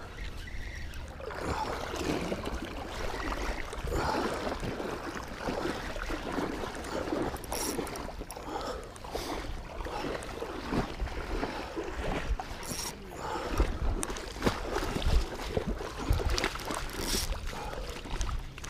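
Splashing and running river water, with irregular low bumps that are loudest late on.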